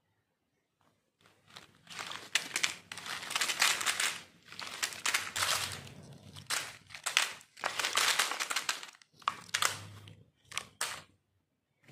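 Dozens of individually wrapped Boomer jelly candies crinkling and rustling in their plastic wrappers as they are tipped out of a bowl into a pile. The crinkling comes in several surges, starting about a second in and dying away near the end.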